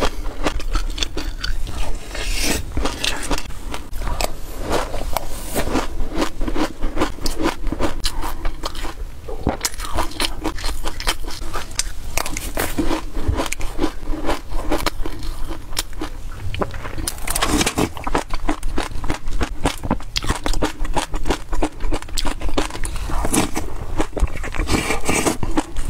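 Dense crunching and crackling of dry sesame seeds and flaxseeds being chewed by the mouthful, with a plastic spoon scraping in a plastic tub.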